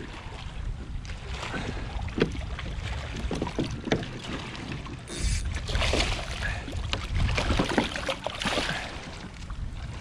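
A hooked snook thrashing and splashing at the water's surface right beside a kayak as it is brought to the boat, heaviest in the second half, over a low wind rumble on the microphone.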